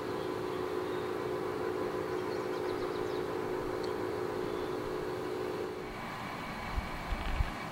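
Steady engine hum with a held droning tone, which fades down about six seconds in; a few low thumps follow near the end.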